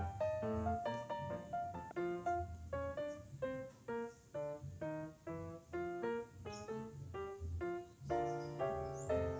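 Background music: a keyboard playing a melody of short, separate notes over a bass line.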